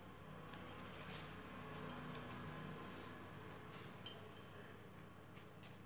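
Faint rustling of paper quilling strips being handled and fitted onto a slotted quilling tool, with a couple of light clicks about two and four seconds in.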